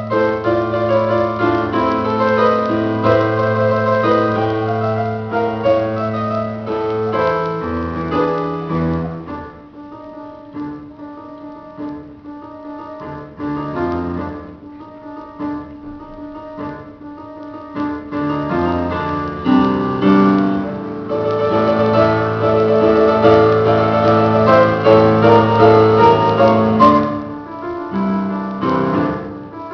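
Solo grand piano playing film themes live, with full, loud chords that thin out to a softer, sparser passage about a third of the way in, then swell back to a fuller, louder section before easing off near the end.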